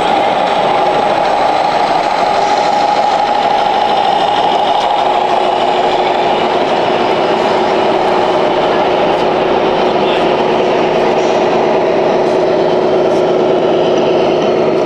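A 1/14-scale RC heavy-haul truck's engine-sound module playing a diesel engine running at a steady pitch over the model's drive noise, with a second steady engine tone joining about five seconds in.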